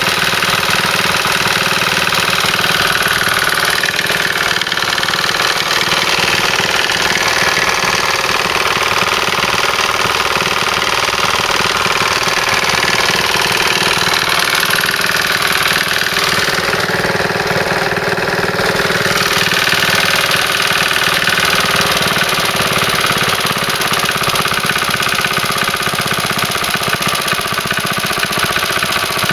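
Briggs & Stratton single-cylinder engine of a 1964 wind-up-start lawnmower running steadily, with a brief change in tone about seventeen seconds in.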